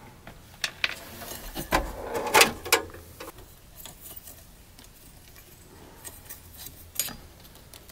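Handling noises: scattered clicks, taps and rustles as electrical wires, a sheet-metal junction-box plate and a paper label on a cable are fingered and pulled. Most of them come in the first three seconds, with another click near the end.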